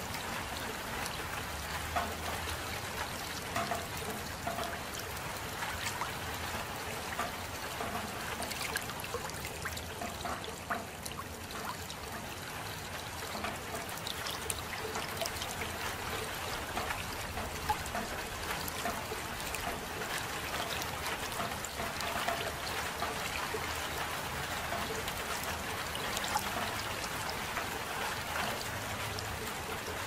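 Steady soft rain falling, with many separate drops ticking close by and water trickling.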